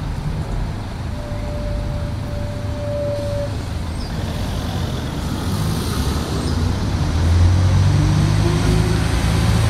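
Single-deck diesel bus driving past close by, its engine growing louder about seven seconds in as it draws level, with a rising whine near the end. A thin steady tone sounds for about two seconds, starting about a second in.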